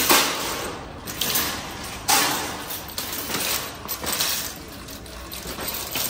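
Metal wire shopping cart clanking and rattling as it is pulled from a nested row and pushed, in a string of sharp clatters, the loudest about two seconds in.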